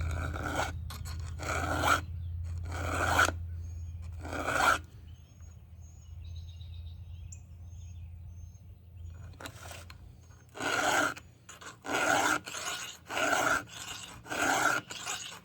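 Round file rasping across a Stihl MS 500i's chainsaw chain cutters in short strokes, four spaced strokes, a pause of several seconds, then a quicker run of strokes about one every three-quarters of a second. A low steady hum runs under the first few seconds and fades away.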